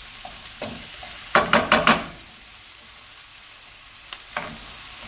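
Diced peppers and onions sizzling in a speckled nonstick frying pan as they sweat off, stirred with a spoon. About a second and a half in, four quick scrapes and knocks of the spoon against the pan are the loudest sounds, with single knocks before and after.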